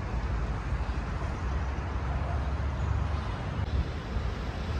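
Wind buffeting the microphone over a steady low rumble, with a constant hiss above it.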